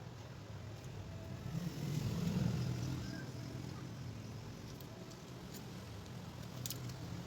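Low rumble of a passing motor vehicle, swelling about two seconds in and then fading, with a few faint sharp clicks.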